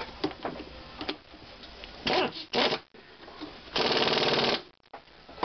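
Impact wrench running the center shaft nut down onto a Toyota Tercel front strut held in a spring compressor: a few light metal clicks, two short bursts about two seconds in, then a longer rapid hammering run of just under a second near the end.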